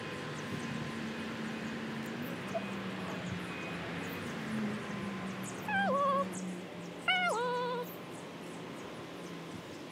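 An animal calls twice, about a second and a half apart. Each call falls in pitch and then holds. Under them is a steady low hum and faint outdoor background.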